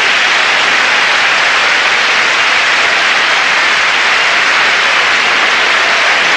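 A large audience applauding, loud and steady dense clapping.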